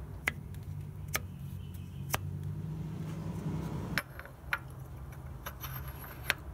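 Small, sharp metallic clicks and taps as the steel crankshaft timing sprocket is handled and slid onto the crankshaft against the new seal: three single clicks about a second apart, then a quicker cluster in the second half, over a low steady hum.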